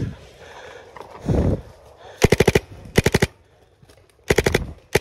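Paintball marker firing in rapid strings of sharp pops, four quick volleys of several shots each beginning about two seconds in. A low thump comes just before them.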